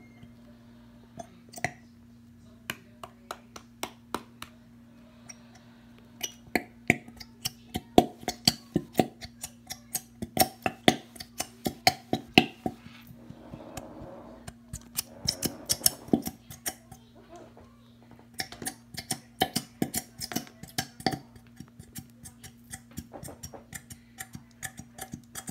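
Plastic glitter glue bottle being knocked and tapped repeatedly against a cup to shake the thick glue out, sharp knocks about two a second, with a stretch of rustling squeeze noise in the middle. A steady low hum runs underneath.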